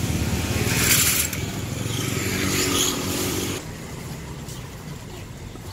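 Motorcycle engine running close by, a pulsing low rumble with a pitched engine note that drops away after about three and a half seconds, amid street traffic.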